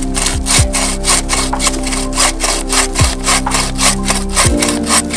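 Hand sawing with a wooden-framed bucksaw cutting through a log, in quick, even back-and-forth strokes of about four a second.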